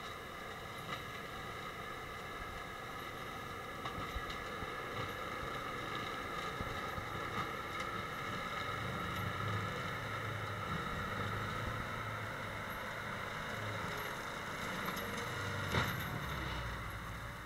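Tractor engine running steadily under load, driving a rear-mounted forestry mulcher working through brush and stumps, with a steady whine over a low rumble. A few sharp knocks cut through, the loudest near the end.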